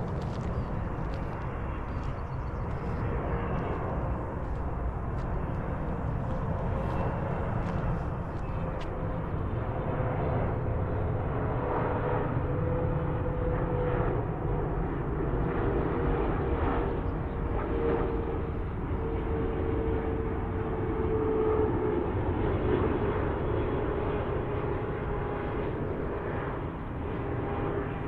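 Airliner's engines running as the plane passes, a steady roar with one tone that slowly falls in pitch.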